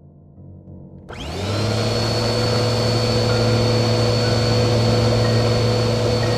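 A motor or engine starts about a second in and then runs steadily with a low hum and a high whine.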